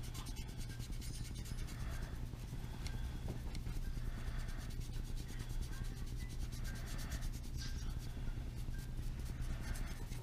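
Wet paint brush scrubbing against a plastic model truck cab, rubbing strokes about once a second, lifting the acrylic paint to give a chipped, weathered finish. A steady low hum runs underneath.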